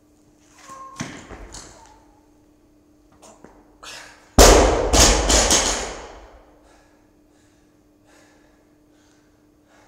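A loaded barbell is dropped to the floor after a clean. It lands with one heavy thump and bounces a few times, the plates rattling as it settles. A lighter clatter of bar and plates comes about a second in.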